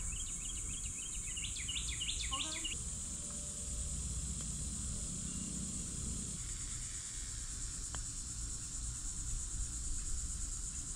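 Insects in the trees making a steady, high-pitched drone, with a bird singing a quick run of repeated chirping notes over the first few seconds. A low outdoor rumble sits underneath.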